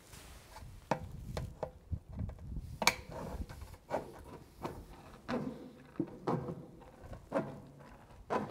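Aviation snips cutting painted steel roof trim: a series of sharp snips and crunches, roughly one to two a second, with light metallic ringing from the sheet.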